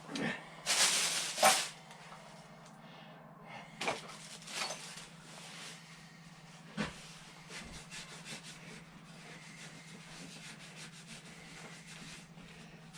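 Hand work on a suspension part: rubbing and scraping, with a short loud rush of noise about a second in and a few sharp knocks, over a low steady hum.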